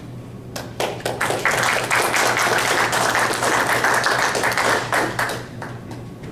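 Audience applauding: a few scattered claps swell into full applause about a second in, then die away near the end.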